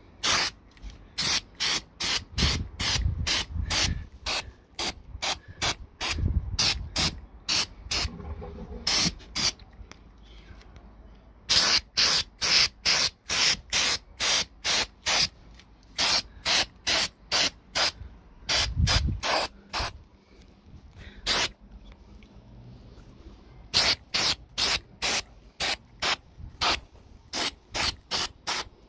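Aerosol spray-paint can spraying brake calipers in rapid short bursts of hiss, a few per second, in runs separated by short pauses.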